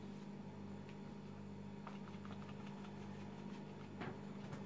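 Quiet room tone with a steady low hum. A few faint light clicks and taps come from a hand working at a plastic paint palette, about two seconds in and again near the end.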